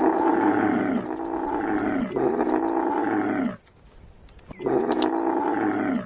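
A camel giving drawn-out throaty calls, each dropping in pitch. One call runs straight into a second about two seconds in. After a pause of about a second, a third call begins.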